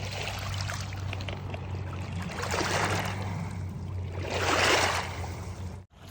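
Water washing in with two surges, the second the louder, over a steady low hum.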